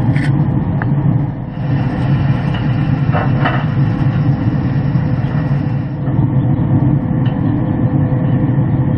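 Steady low machine hum with a faint constant tone above it. A few light clinks come about three seconds in.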